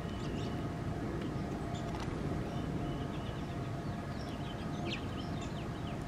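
Wild birds chirping in short, high notes, busiest in the second half, over a steady low rumble, with a faint click or two.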